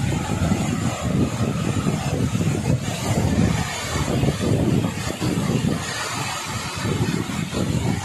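Steady roar of a large waterfall: water pouring down a rock face and crashing into its plunge pool, with a heavy low rumble.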